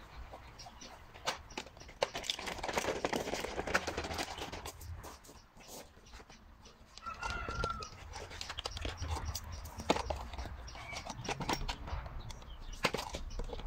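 Footsteps crunching on gravel and a wheeled cable-reel cart rattling and clunking as it is pushed and set down, with one knock louder than the rest about ten seconds in. A chicken gives a single short call about seven seconds in.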